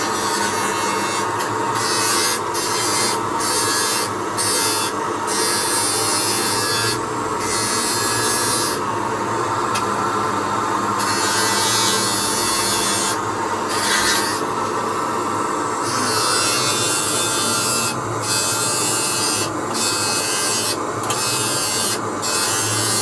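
Abrasive rasping and rubbing of a tool worked against hard material, in strokes broken by short pauses every second or two.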